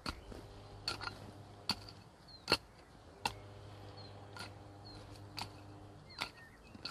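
Hand hoe chopping into damp soil, one sharp strike about every second, nine strokes in all. Faint bird chirps and a low steady hum sit underneath.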